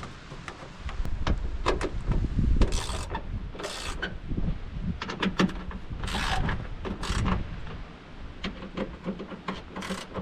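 Hands working plastic tailgate trim and clips back into place: a run of sharp clicks and knocks with several short scraping rustles, the loudest stretch about a second to four seconds in.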